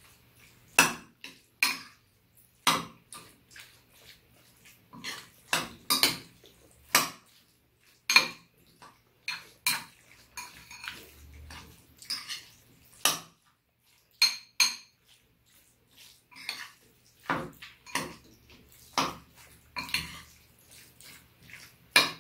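Metal spoons clinking and scraping against ceramic bowls as two people mix and eat bibimbap. The sharp clinks come irregularly, about one or two a second.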